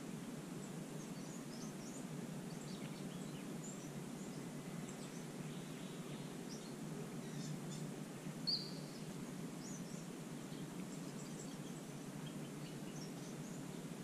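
Faint chirps and twitters of small bush birds scattered over a steady low background rumble, with one louder short bird call about eight and a half seconds in.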